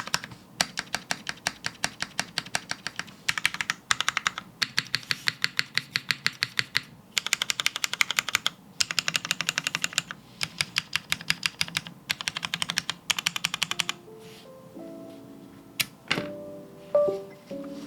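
Mechanical keyboard being spammed: rapid bursts of keystrokes on Cherry MX Black linear switches in an unfoamed, top-mounted aluminium-plate Spyder TKL, a fast even clatter broken by short pauses. About fourteen seconds in the clatter stops, and plucked-sounding music begins, with a couple of single sharp clicks.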